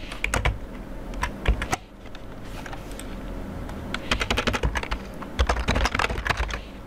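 Typing on a computer keyboard in quick bursts of keystrokes, with a pause of about two seconds early on before a second run of typing.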